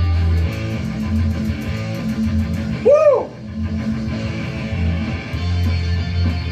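Rock song playing, with guitar over a steady bass line and ticking cymbals. About three seconds in, a short note swoops up and back down in pitch.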